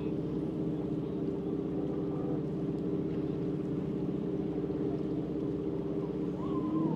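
Canal boat's engine running steadily, a low hum with a fine regular pulse. It rises slightly in pitch and gets a little louder near the end.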